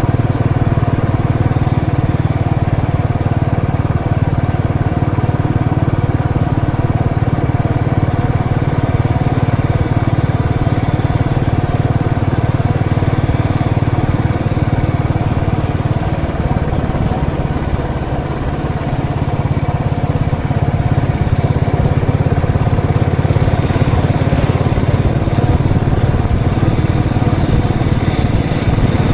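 Royal Enfield Electra's single-cylinder engine running steadily as the motorcycle is ridden, easing off briefly about two-thirds of the way through before picking up again.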